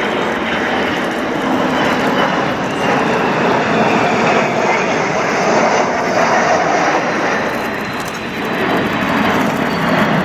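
Jet noise from the Boeing KC-135R's four CFM56 (F108) turbofan engines as the tanker flies past overhead. The sound is loud and steady, with a faint high whine slowly dropping in pitch.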